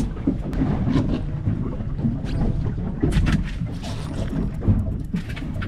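Steady low rumble of a boat's motor with wind on the microphone, and scattered knocks and scuffs as fish are handled on the fibreglass deck.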